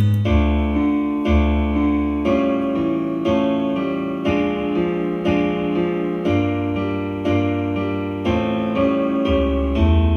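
Piano music played back through a Logitech Z313 2.1-channel computer speaker set with subwoofer, chords struck about once a second over a strong bass line.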